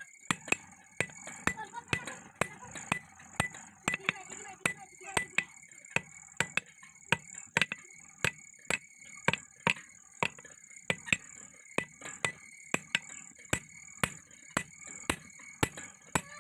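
Hammer blows on hot steel over an anvil, at about two strikes a second, forging a round rod into an axe head, with a steady metallic ring between the blows.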